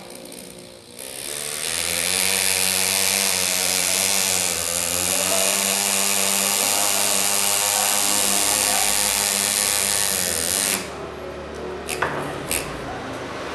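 Pneumatic engraver's handpiece hammering a graver into a Harley-Davidson engine cover: a steady, even buzz with a hiss of air. It starts about a second in, cuts off near the end, and a couple of sharp clicks follow.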